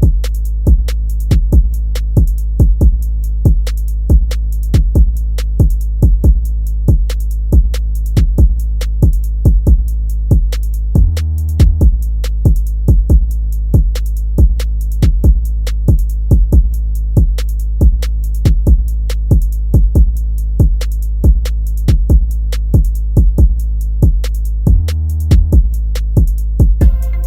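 Background hip-hop instrumental built on a drum machine: a steady beat of sharp hits over a sustained deep bass, with brief drops about eleven seconds in and again near the end.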